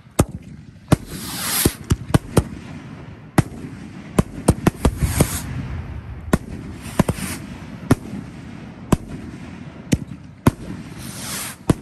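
Fireworks from a 30-shot rocket rack: rockets going up one after another with rising whooshes and bursting overhead with a dozen or more sharp bangs, irregularly spaced, several coming in quick runs.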